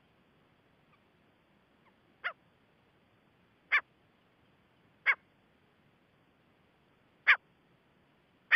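Gray francolin calling: five short, sharp single notes at irregular intervals of about one to two seconds, the first quieter and the later ones louder.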